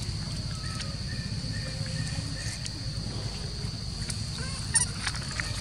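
Outdoor background of a steady, high insect drone over a low rumble, with a few brief faint calls and a short sharp sound near the end.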